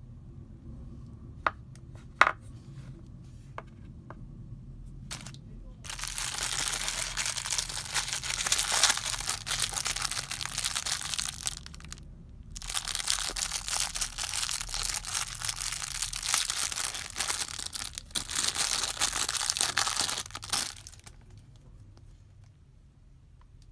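A few light clicks, then from about six seconds in a clear plastic bag crinkling and tearing as it is handled and opened, with a short pause about halfway through, stopping a couple of seconds before the end.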